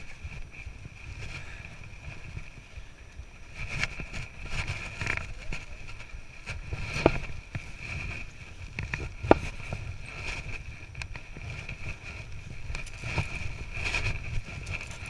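Wind rumbling unevenly on the microphone, under a steady high-pitched hum, with two sharp clicks about halfway through and a couple of seconds apart.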